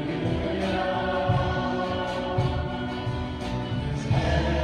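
Live worship band playing a gospel song: voices singing together over acoustic guitar and electric bass, with a steady beat.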